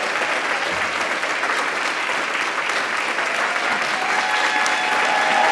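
Theatre audience applauding steadily, the clapping swelling a little toward the end.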